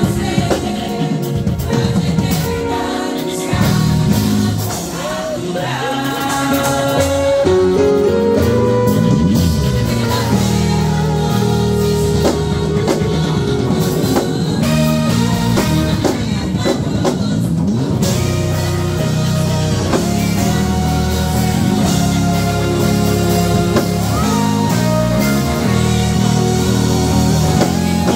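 Live worship band playing a gospel song: drum kit, electric bass, electric guitar and keyboard, with a voice singing over them.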